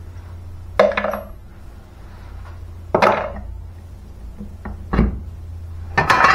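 Metal clinks and clatter of a spanner and engine parts being handled on a workbench as the ignition plate is taken off a Simson moped engine: four separate clatters a second or two apart, one of them a dull thud.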